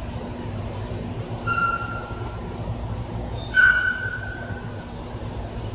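A dog whining: a thin high whine about one and a half seconds in, then a louder one at about three and a half seconds that sags slightly in pitch. A steady low hum runs underneath.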